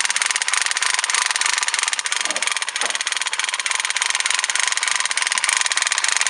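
Noise-making toy gun rattling non-stop, a fast steady clatter of many rapid clicks each second. About two seconds in, a wolfdog puppy gives a brief whine.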